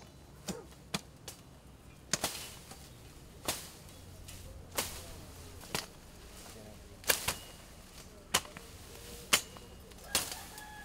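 Machete chopping through brush and woody stems: about a dozen sharp swishing strikes at an uneven pace, roughly one a second.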